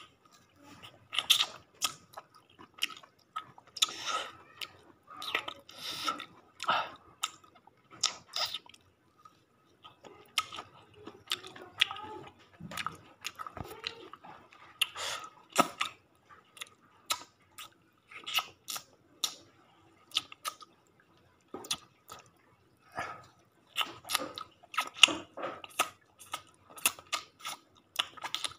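Close-up mouth sounds of someone eating chicken: irregular wet smacks, bites and chewing noises, coming every second or so. A faint steady high tone runs underneath.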